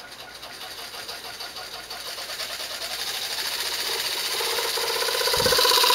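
Small 12-volt piston air compressor pump, taken from a Bon-Aire emergency compressor, running with a fast rhythmic chatter and growing steadily louder as the voltage of its bench power supply is turned up, loudest and steadiest near the end.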